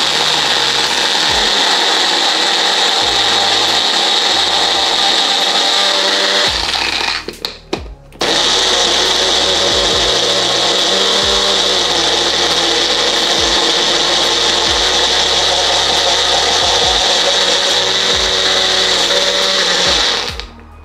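Magic Bullet personal blender running, blending fruit and ice into a smoothie. It runs in two long stretches, broken about seven seconds in by a pause of about a second and a half with a few clicks, and stops just before the end.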